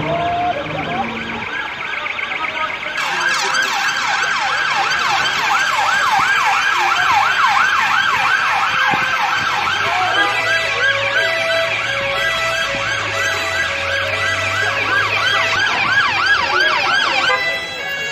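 Police car siren on its fast yelp setting: a rapid rising-and-falling wail, about three cycles a second. It starts about three seconds in and breaks off just before the end, with steadier siren tones underneath in the second half.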